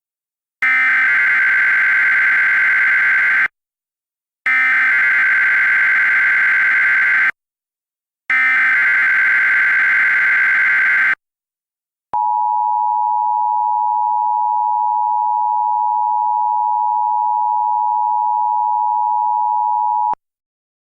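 Emergency Alert System header: three bursts of SAME digital data tones, each about three seconds long with a second's gap between, carrying the coded special marine warning. Then the EAS two-tone attention signal sounds steadily for about eight seconds and cuts off.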